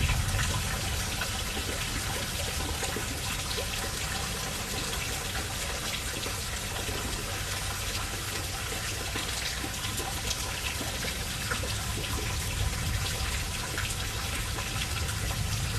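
Steady rain falling, with water running and splashing and scattered drops ticking close by.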